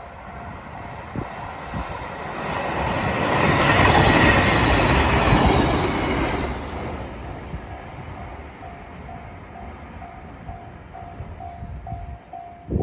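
Train passing over a level crossing: the rush of wheels and running gear builds to a loud peak for a few seconds, then fades. The crossing's warning bell rings in an even, repeating pulse before the train arrives and again as it fades.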